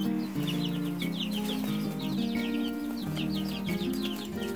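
Three-week-old chicks peeping in repeated clusters of quick, falling chirps, over background music with held low notes.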